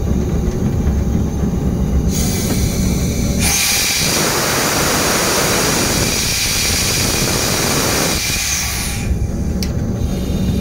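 A diesel locomotive's engine rumbling low, cut across by a loud steady hiss that starts about two seconds in, is loudest from about three and a half seconds to nine, then stops, leaving the engine rumble again.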